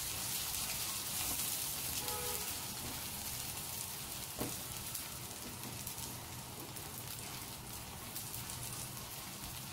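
Ground spice masala frying in hot oil in a non-stick wok: a steady crackling sizzle, with the silicone spatula stirring through it.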